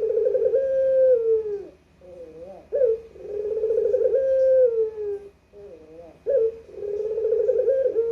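Puter dove (collared dove) cooing in repeated phrases about every three seconds. Each phrase is a few short wavering notes, a sharp upward note, then a long rolling coo that falls away at its end.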